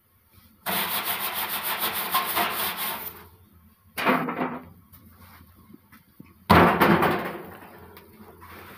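Handling at a drum bread oven: a rasping noise for about two and a half seconds, a short burst about four seconds in, then the loudest sound, sudden and fading over about a second, as a thin sheet of riqaq dough is slapped onto the hot oven wall.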